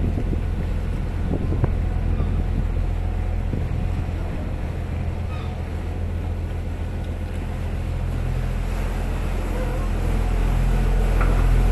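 Canal tour boat's motor running with a steady low hum, growing louder near the end as the boat passes under a stone bridge arch.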